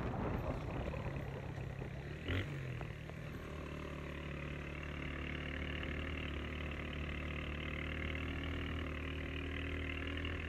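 Engine of a vehicle running steadily while driving along an unpaved road, with an even wash of tyre and road noise; a short sharp sound stands out about two seconds in.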